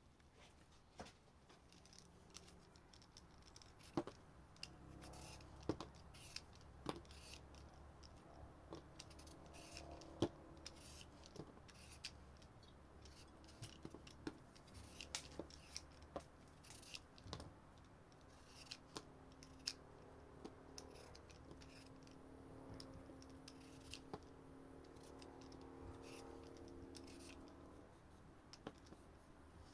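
Irregular sharp clicks and snips of food being cut by hand, dozens of them at an uneven pace, with a faint low hum underneath in the second half.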